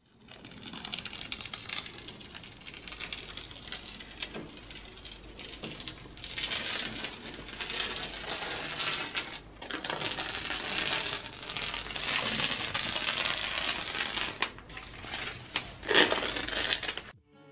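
Painter's masking tape being peeled off a freshly painted wall, a crackling, tearing sound in several long pulls with short pauses between them. The loudest rip comes near the end.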